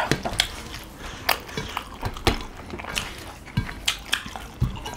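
Eating by hand: chewing and mouth sounds, with irregular small clicks and taps as fingers pick food off a steel plate.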